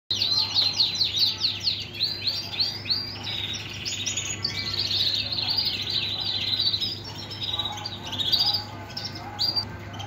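Male canary in full song: quick runs of falling notes, then a fast rolling trill, then varied phrases, all without a break.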